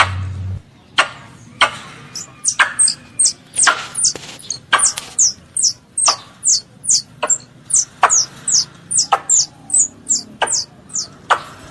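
A young squirrel calling for its mother: a rapid series of short, high chirps, each falling in pitch, about two or three a second, mixed with sharp clicks.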